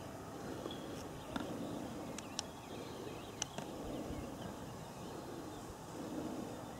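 Faint open-air background with a few brief, faint high chirps or ticks scattered through it.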